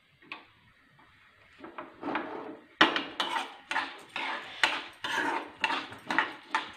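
A steel spoon scrapes and stirs washed red rice dry-roasting in a nonstick kadai. It is quiet at first, then brisk scraping strokes follow, about one or two a second, from roughly three seconds in.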